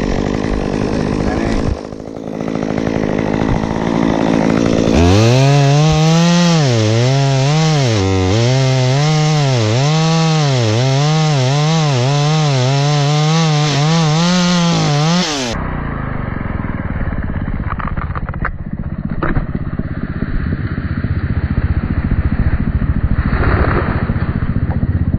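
Chainsaw running at high revs while cutting, its pitch dipping and recovering about once a second as the chain bites. About fifteen seconds in, the sound cuts abruptly to a duller, steady engine noise with a few clicks.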